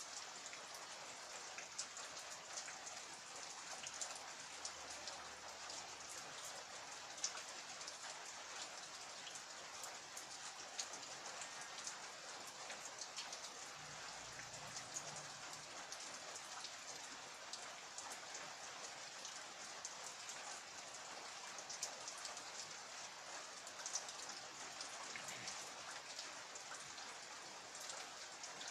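Steady rain falling, with many separate drops ticking sharply through it.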